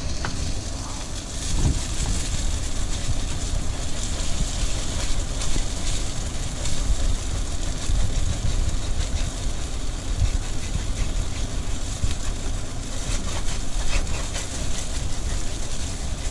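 A spoon stirring and scraping a thick etouffee base in a pot, with quick scratchy scrapes against the bottom, over a steady low rumble.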